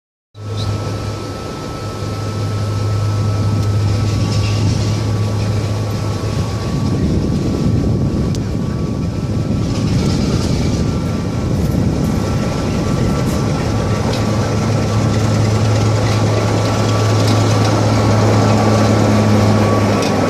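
BR Class 25 diesel locomotive D7628 'Sybilla', its Sulzer six-cylinder engine running with a steady low drone and a few thin steady tones above it as it rolls slowly up and alongside, growing louder as it nears.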